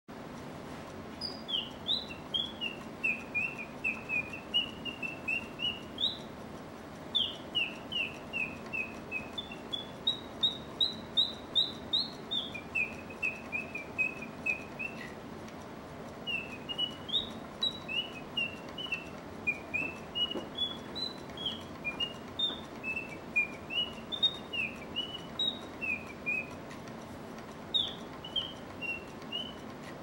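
German singing bird automaton's bellows-driven whistle piping mechanical birdsong: phrases of quick chirped whistle notes that rise and fall, with short pauses between phrases.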